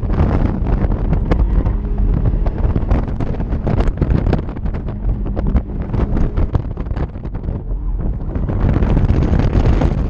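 Heavy wind buffeting on the microphone of an open-top Mazda MX-5 being driven hard in an autocross run, with the engine and tyres running beneath it. The noise swells louder and brighter near the end.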